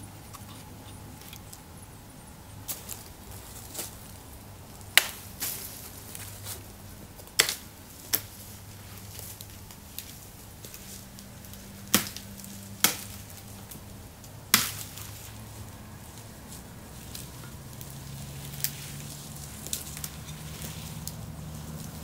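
Dry wood being worked by hand: about half a dozen sharp wooden cracks and knocks at irregular intervals, the loudest near the middle.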